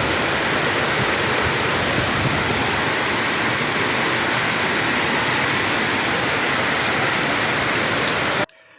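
Heavy rainstorm with hail: a steady, dense downpour that cuts off abruptly near the end.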